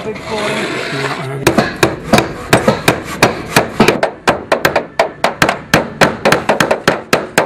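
Hammer driving a nail through the slot of a metal roof-tile fixing strap: quick, regular blows, about three a second, beginning about a second and a half in.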